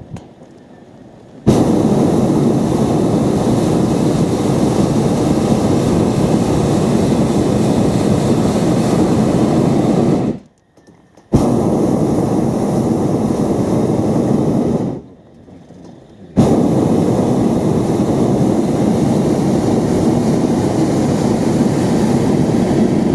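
Hot air balloon's propane burner firing in three long blasts of about nine, four and seven seconds, each cutting in suddenly, with short quieter gaps between.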